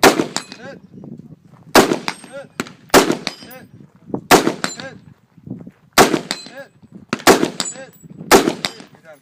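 Shotgun fired seven times in a steady string, the shots about one to two seconds apart, each with a short ringing echo.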